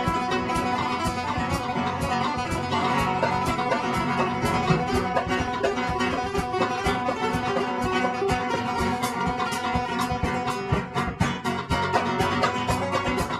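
Live instrumental of two nylon-string acoustic guitars with a drum kit: fast strummed and picked guitar over cymbal and drum playing, with many quick, evenly spaced strokes.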